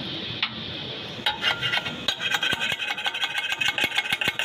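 Arc of an automatic wire-feed welder with 3 mm wire, crackling and spitting in a dense, irregular stream of sharp pops that starts about a second in, after a steady hiss.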